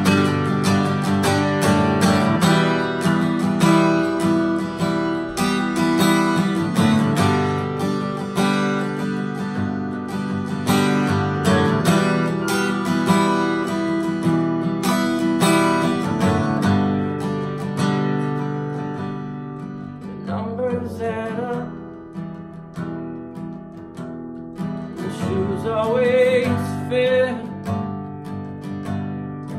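Acoustic guitar strummed steadily in dense chords. About two-thirds of the way through, the strumming thins out and a man's voice comes in singing.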